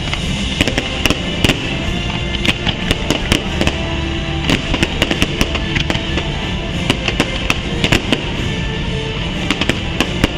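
Fireworks bursting: many sharp bangs and crackles in quick succession, over loud show music.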